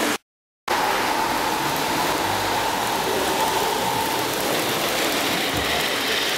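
N-gauge model trains running on the layout: a steady rushing hiss of wheels and motors on the track, with a faint thin whine for the first few seconds. The sound cuts out completely for about half a second just after the start.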